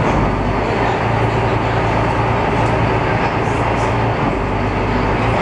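Glass-bottom tour boat's engine running with a steady low drone, heard from inside the boat.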